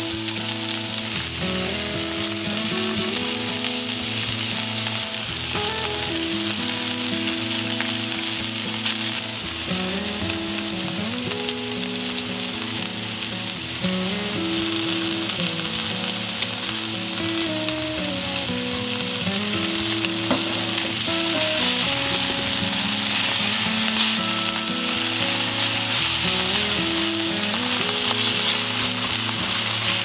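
Diced bacon and garlic sizzling steadily in fat in an iron skillet, turned now and then with tongs. Soft background music plays underneath.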